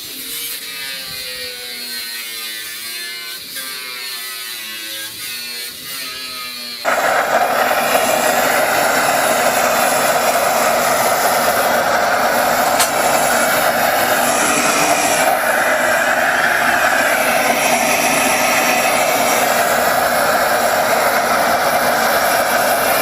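A power tool running with a wavering whine, then from about seven seconds in a sudden, much louder steady noise as it works on the material.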